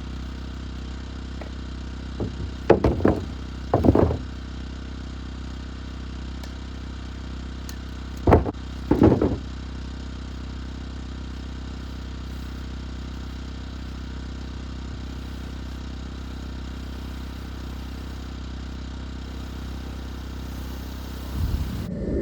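Pieces of hardwood firewood knocking and clattering together as they are dropped onto a pile, in a few short bunches of knocks about a second apart and again a few seconds later, over a steady low hum.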